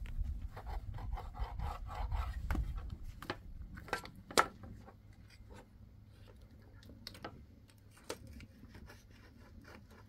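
Knife cutting raw meat on a metal tray: rubbing, scraping strokes with light clicks of the blade on the tray, dense for the first few seconds, then sparser. A sharp knock about four seconds in is the loudest sound, and a low rumble sits under the first few seconds.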